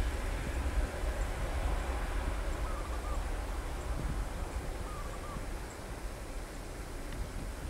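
Low rumble of a Boeing 737-900ER's jet engines, slowly fading away. A short wavering bird call sounds twice over it.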